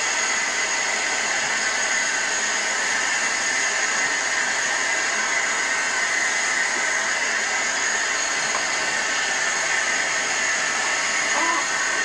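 Water running steadily from a faucet into a bathroom sink, an even, unbroken hiss.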